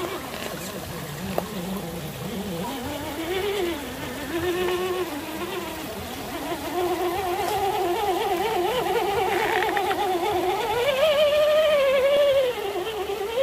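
Electric motor and gearbox of a Traxxas TRX-4 Defender RC crawler whining as it drives. The pitch wavers up and down with the throttle, climbs higher about eleven seconds in, then drops back near the end.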